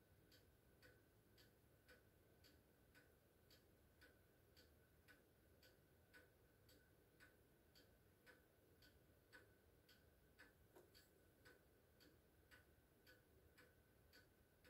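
Near silence: room tone with faint, even ticking, a little under two ticks a second.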